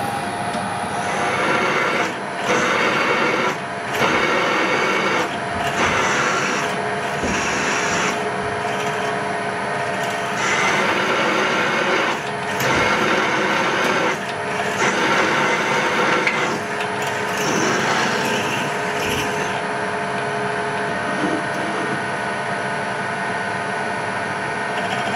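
Bench drill press drilling through a steel workpiece: the motor and spindle whine steadily under the grinding, scraping noise of the twist drill cutting, with louder spells coming and going every second or two.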